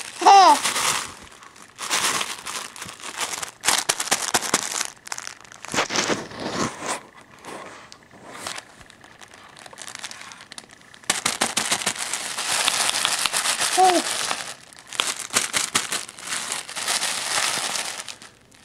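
Crinkling of a baby's soft cloth book as the infant grabs and handles it, in irregular bursts. Short baby vocalisations come near the start and again about two-thirds of the way through.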